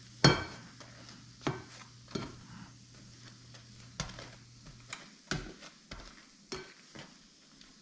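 A spatula knocks and scrapes against a stainless steel frying pan while bagel halves are turned and pushed around in butter. There are about nine knocks, and the first, loudest one makes the pan ring briefly. A faint sizzle of frying butter sits underneath.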